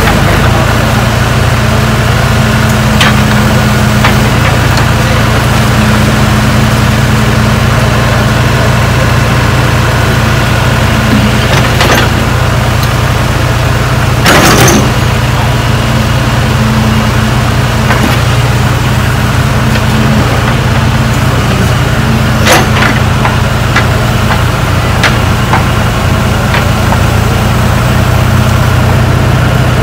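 Backhoe loader's diesel engine idling steadily, with rain hissing down and a few sharp clanks, the loudest about halfway through.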